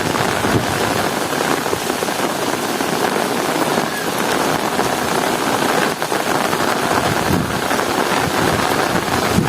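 Heavy rain pouring steadily, an even hiss of rainfall.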